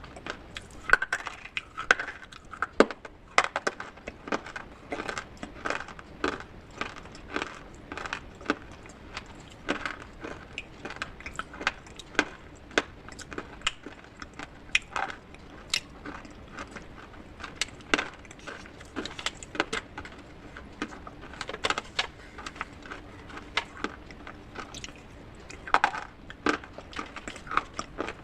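Hard pieces of soaked clay pot and slate being crushed, in a string of sharp, irregular crunches and clicks, one to three a second, with light clinks of hard material.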